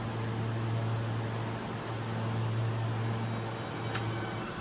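Subway train approaching the station: a steady low hum and rumble with a hiss over it, and a sharp click about four seconds in as its front car comes alongside.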